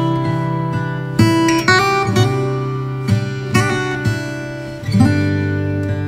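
Background music: acoustic guitar, plucked and strummed, with chords changing every second or so.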